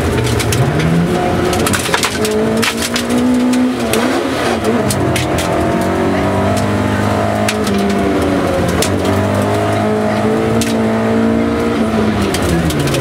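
Rally car engine heard from inside the cabin at speed on a gravel stage, its pitch rising and falling repeatedly as the driver accelerates, lifts and changes gear. Sharp clicks of gravel striking the car's body are scattered throughout.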